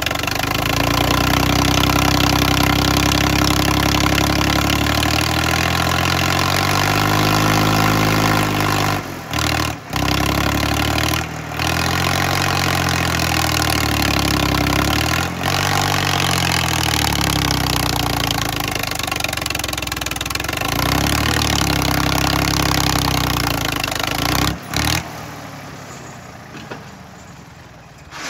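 Swaraj 744 XT tractor's diesel engine labouring as it pulls a trolley loaded with soil, its speed rising and falling several times. There are a few short breaks in the sound, and it fades out near the end.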